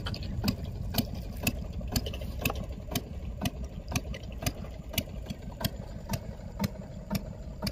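A boat's motor idling: a steady low rumble with a sharp tick about twice a second.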